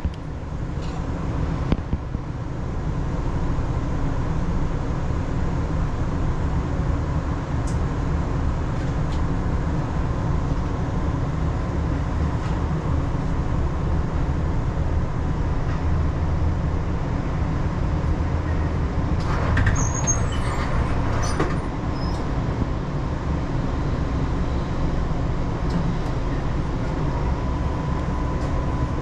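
Tram's running noise heard from inside the car: a steady low rumble with a faint whine. There is a short spell of clicks, rattles and squeaks about twenty seconds in, and the whine grows a little stronger near the end.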